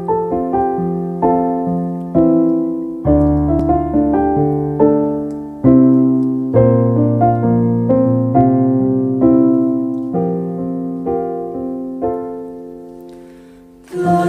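Piano introduction: chords struck in a steady pulse, each note ringing and fading, with deeper bass notes joining about three seconds in and the playing fading down near the end. Right at the end a choir comes in singing.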